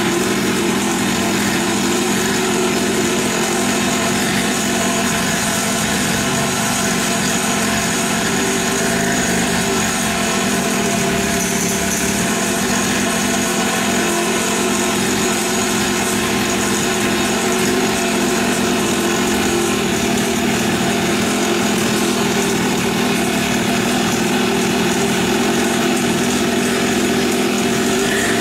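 Small 50cc two-stroke mini dirt bike engine running steadily at idle after a pull-start, with an even, unchanging pitch and no revving.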